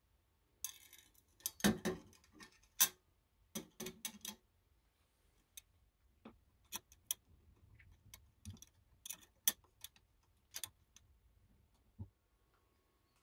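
Small steel sewing-machine parts clicking and tapping on a metal bed plate as a seam guide is set in place and its knurled thumb screw fitted: irregular clicks, a busy cluster in the first few seconds, then single clicks about a second apart.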